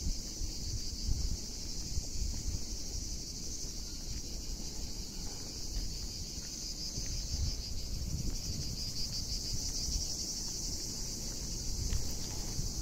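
A steady, high-pitched chorus of insects chirring in the trees over a low, uneven rumble of wind and handling noise on the phone's microphone.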